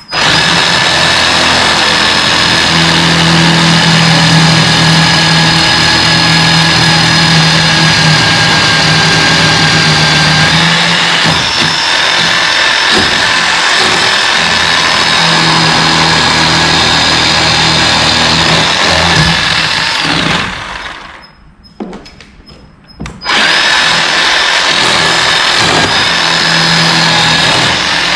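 Cordless electric chainsaw running at full speed with a steady high whine, cutting into a boat's transom. It stops for about three seconds some 20 seconds in, with a few knocks in the gap, then runs again.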